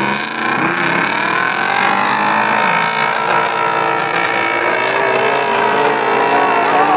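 Several off-road 4x4 trucks revving hard together as they climb a sand dune, their engines rising in pitch under full throttle.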